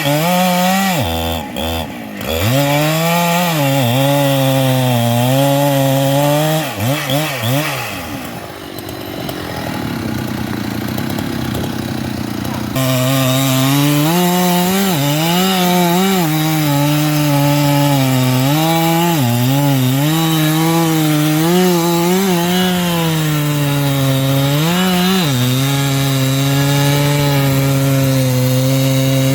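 Large Husqvarna two-stroke chainsaw cutting into a sengon (albizia) trunk at full throttle, its pitch dipping and recovering again and again as the chain bogs under load. About eight seconds in the revs drop away for a few seconds, then snap back to full speed and it keeps cutting.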